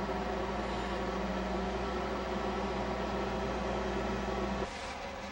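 Flatbed truck's engine running at a steady idle, a low even rumble that cuts off near the end.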